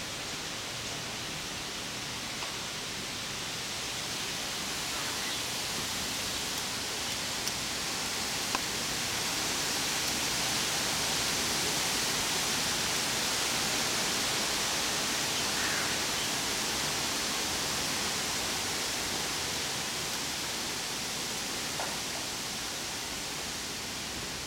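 Light summer rain falling on tree leaves: a steady hiss that swells a few seconds in and then holds, with a few faint ticks of drops.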